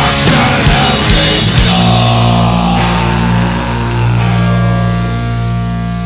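Skinhead rock'n'roll band recording: drums and distorted electric guitars play for about two seconds, then the drums stop and a held chord rings on, slowly fading.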